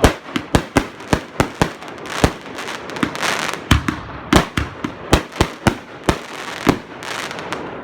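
Fireworks going off: a quick, irregular run of sharp bangs, several a second, with crackling hiss between them.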